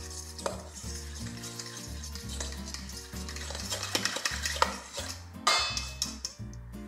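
A fork stirring and beating a thick wet mixture of sour cream, egg and melted butter in a stainless steel bowl, scraping and clicking against the metal, over soft background music.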